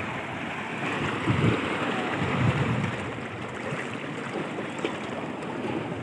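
Small sea waves washing over and surging between barnacle-covered rocks on a rocky shore, a steady watery rush with a couple of stronger swells, with low wind buffeting on the microphone.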